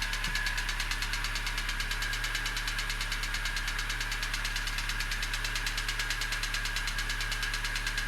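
ZMZ-406 four-cylinder engine of a GAZ 3110 Volga idling with a steady, even knock several times a second. The knock is the fault the owner is chasing: it is absent from cold and appears once the engine is warm, at idle and on throttle release.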